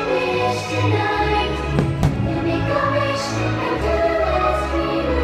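Orchestral show music with a choir singing, the soundtrack of a fireworks show, with a firework bang about two seconds in.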